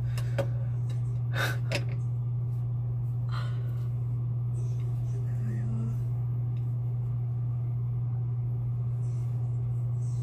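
A steady low hum, with a few short noises in the first few seconds.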